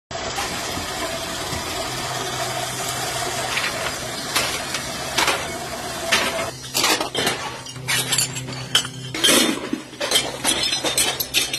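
Coal forge fire with a steady rush and low hum, then from about halfway a run of sharp clinks and knocks as lumps of coal and metal are tipped and shifted on it.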